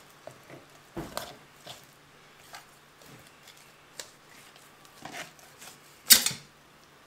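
Filleting knife working a Murray cod's flesh free of the rib cage on a plastic cutting board: scattered light clicks and scrapes, with a louder knock about six seconds in.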